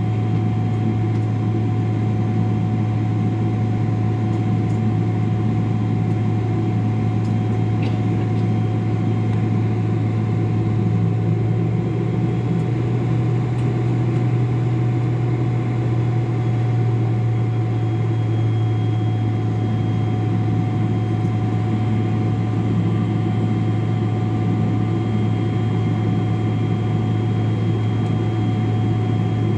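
Steady low drone heard inside the cabin of a Boeing 777-300 airliner with its engines running, a constant deep hum with a fainter steady tone above it.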